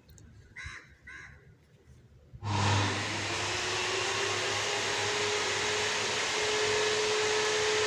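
Two short high chirps, then about two and a half seconds in an electric blower motor with fan switches on and runs steadily, a loud rushing of air with a steady whine.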